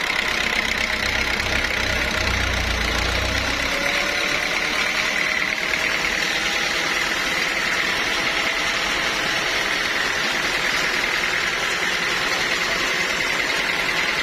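Sawmill machinery running steadily, with a constant high whine over an even noise. A low rumble sounds for the first few seconds, then drops away.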